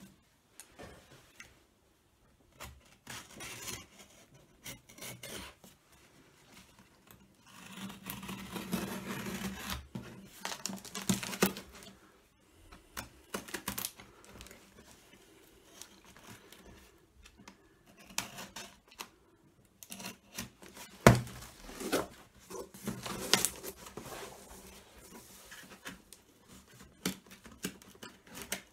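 A small knife slicing through packing tape and cardboard along the seams of a box: uneven scraping and rasping of the blade, in spells, with two loud short sharp cracks about two-thirds of the way through.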